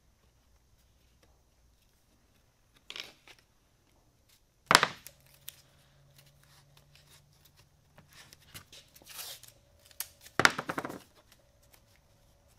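Blue painter's tape being pulled off the roll and torn into strips: two loud, sharp rips about five and ten and a half seconds in, with smaller rips and crackling of the tape around them.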